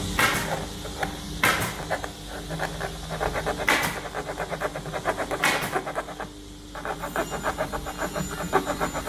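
A saw cutting through a veneered wood panel: a fast, even rasping of short strokes, with a few louder scrapes and a brief pause about six seconds in.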